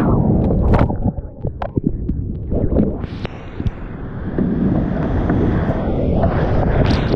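Whitewater rushing around a kayak running down a steep rapid, heard through a GoPro with wind and spray buffeting the microphone. Short sharp splashes and knocks from paddle strokes and water hitting the camera come through the rush, which eases briefly early in the run and then builds again.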